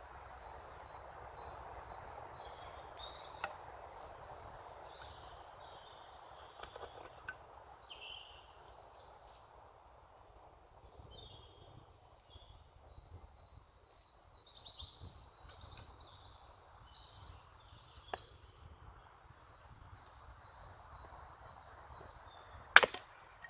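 Woodland birds chirping and singing, with a few light knocks of wood. Near the end comes one sharp, loud crack: a hatchet striking and splitting a short sycamore log.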